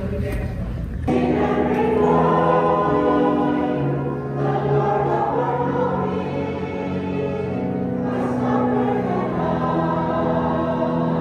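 A church choir singing a hymn in slow, long held notes, starting abruptly about a second in.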